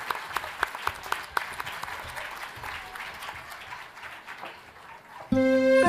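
Audience applause, with loud, evenly spaced hand claps at first, thinning out and dying away. Music starts suddenly near the end.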